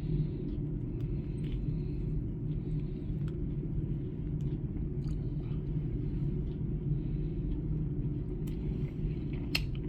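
Steady low engine rumble, with a few faint clicks of chewing as a chicken wing is eaten.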